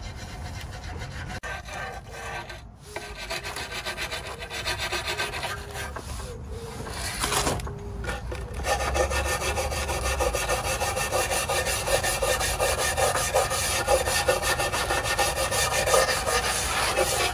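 A rag rubbing over the head of a Honda B18C engine at first, then, from about nine seconds in, quick, steady scraping strokes of a flat metal tool along the gasket groove of the engine's removed head cover, cleaning off old gasket residue before a new gasket goes in.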